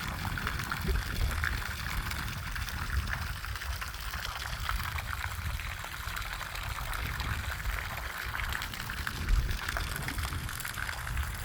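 Steady rushing of running water, with uneven low rumbling and a brief louder gust about nine seconds in.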